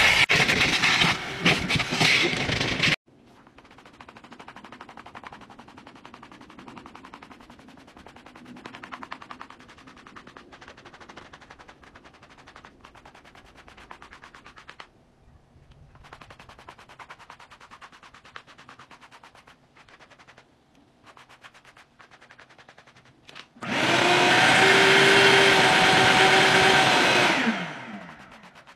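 A shop vacuum runs loudly and cuts off sharply about three seconds in. Then a hand-held brush scrapes quickly back and forth over a carpeted car floor mat, a quiet rasping of rapid strokes lifting embedded hair. Near the end the shop vacuum runs again for a few seconds with a steady hum, then winds down in falling pitch as it is switched off.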